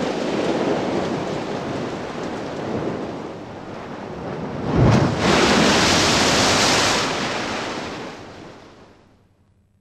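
Storm noise of rain and wind. A deep boom comes about five seconds in, followed by a louder hissing rush for about two seconds, and the sound then fades away to silence near the end.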